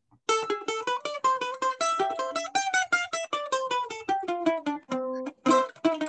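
Mandolin picked rapidly in a quick single-note melody, starting a moment in, with a short held low note about five seconds in before the run resumes.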